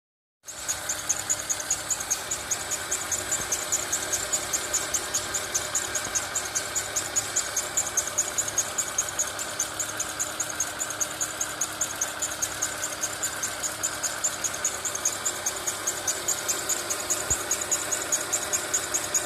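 Peugeot 206 engine running just after start-up, with a regular sharp ticking about four to five times a second over the steady engine sound: the start-up noise the owner is asking about.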